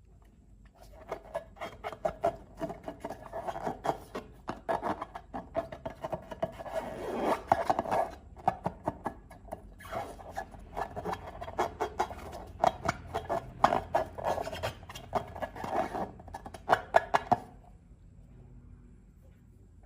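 Slime and balloon material worked by hand: close-up rubbing with many quick sticky crackles and squelches. It starts about a second in, swells around the middle, and stops a couple of seconds before the end.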